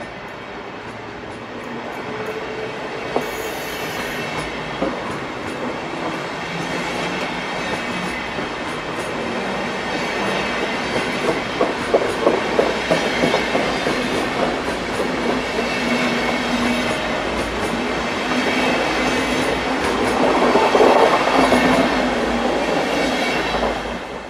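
A train of 1980s InterCity passenger coaches running past close by: steady rolling noise with the rattle and clack of wheels over rail joints, clusters of clicks in the middle. It is loudest shortly before the end as the last coaches go by.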